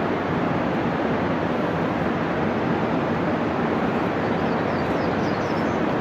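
Steady rushing of fast-flowing whitewater, an even loud roar with no breaks. A few faint high chirps come in near the end.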